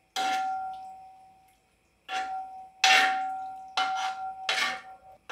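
A metal spoon clanks against the side of a large aluminium pot while a thick curry is stirred. There are about five knocks, each leaving a ringing tone that fades away.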